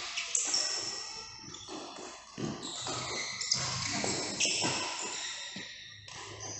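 Badminton play: sharp racket strikes on the shuttlecock at irregular intervals, mixed with short high squeaks of shoes on the court floor.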